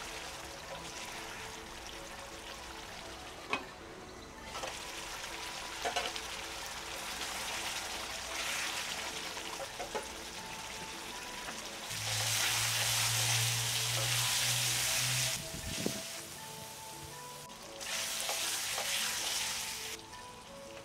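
Chicken curry sizzling and bubbling in a kadai as its gravy cooks down, stirred with a wooden spatula that knocks against the pan a few times. The sizzling gets louder for a few seconds about twelve seconds in, and again near the end.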